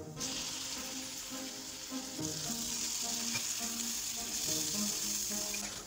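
Marinated chicken breast pieces hitting hot oil and garlic in a nonstick frying pan, sizzling at once and frying steadily as a spatula turns them; the sizzle eases just before the end.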